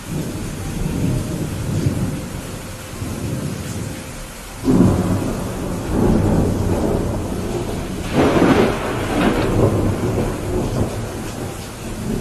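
Thunderstorm: steady rain with rolling thunder, a sharp thunderclap about halfway through and another loud roll of thunder a few seconds later.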